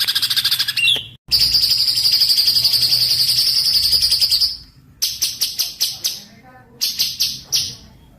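Small songbirds singing in a spliced recording: a rapid, high, buzzing trill that runs for a few seconds with a short dead-silent cut early on, then two runs of sharp, high chip notes at about five a second.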